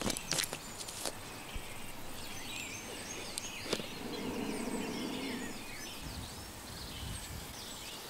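Woodland ambience with small birds chirping and singing, and a few sharp cracks near the start.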